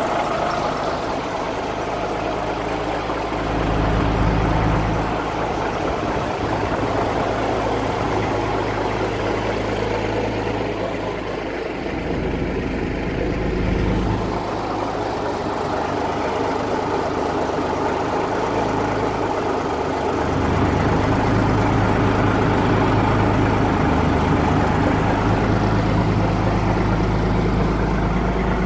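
Kenworth W900 semi truck's diesel engine idling after a cold start, its low note shifting slightly a few times.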